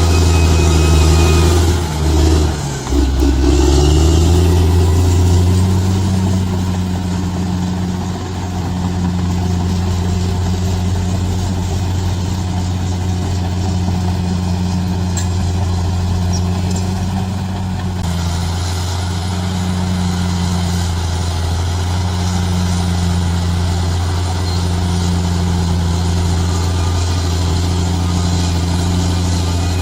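Bulldozer's diesel engine running, louder for the first few seconds with a brief dip in the engine note about two to three seconds in, then running steadily.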